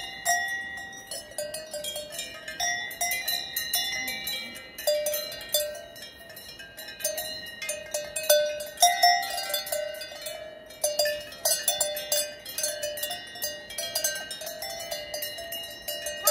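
Cowbells on the neck straps of cows clanking irregularly as the cows move, frequent strikes with a ringing tone.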